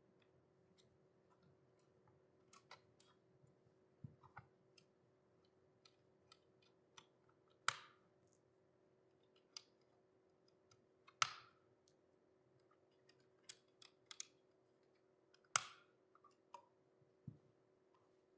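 Scattered small clicks and taps of model-kit parts being handled and fitted together, with three louder clicks spaced a few seconds apart, over a faint steady hum.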